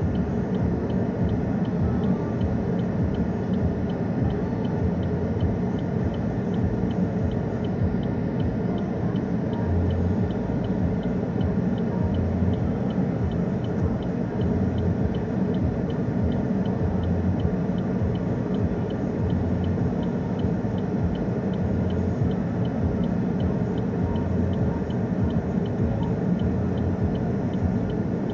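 Passenger train rolling slowly past: a steady low rumble with a regular light ticking, about three a second, and a low thump every few seconds as the cars go by.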